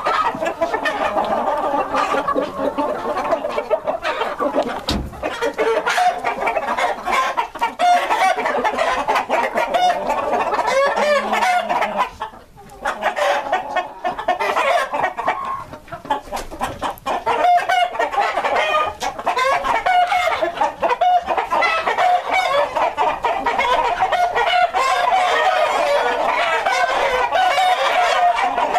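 A barn full of White Plymouth Rock chickens, hens and roosters, clucking and calling over one another in a steady din, with roosters crowing at times.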